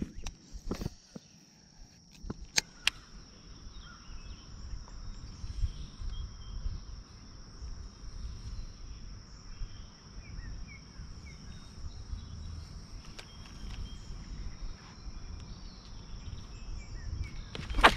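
A steady, high-pitched insect drone over a low outdoor rumble, with a few sharp clicks in the first few seconds and a sudden loud noise just before the end.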